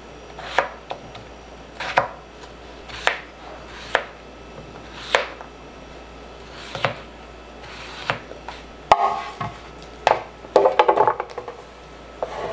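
Chef's knife chopping raw peeled potatoes on a plastic cutting board, a sharp knock about once a second. Near the end come quicker clattering knocks with some ringing as the potato pieces are slid off the board into a glass bowl.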